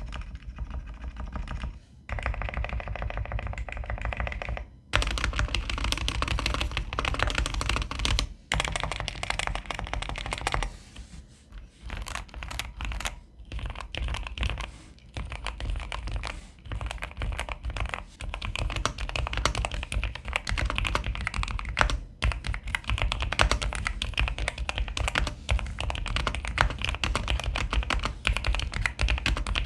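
Typing sound test on a GMK67 mechanical keyboard fitted with Ajazz PBT keycaps, with no other modifications: a fast, continuous run of key clacks broken by a few brief pauses.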